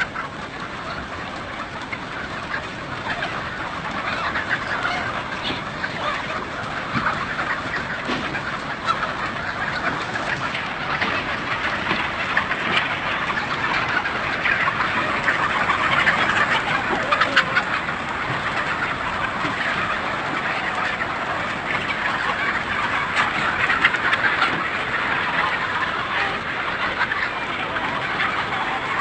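A large flock of poultry-farm chickens calling, a steady din of many overlapping clucks.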